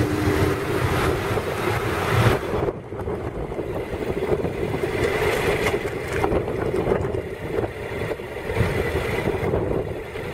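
Honda NC700X parallel-twin engine running under way, with wind and road noise rushing over a handlebar-mounted camera's microphone. The sound is deeper and louder for the first couple of seconds, then changes abruptly where the footage cuts.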